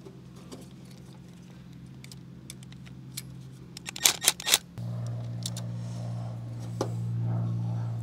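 Small metal clicks and rattles of wires and crimped spade terminals being pulled off and handled inside an air-conditioner condenser's control box, with a quick cluster of sharp clicks about four seconds in. Underneath is a steady low hum that gets louder about five seconds in.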